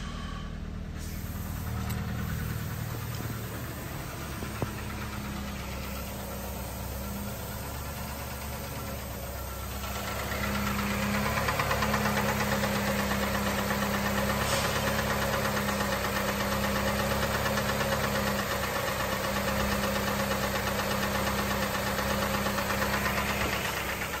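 2008 Dodge Avenger's 2.4-litre Dual VVT four-cylinder engine idling steadily, first heard from inside the cabin. About ten seconds in it becomes louder and clearer, heard at the open hood.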